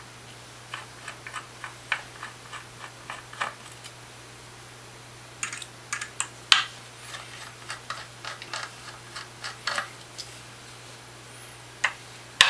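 Small screwdriver working the screws of an adapter on a filter wheel, making light, irregular metallic clicks and ticks in clusters as it seats and turns in the screw heads. A steady low hum runs underneath.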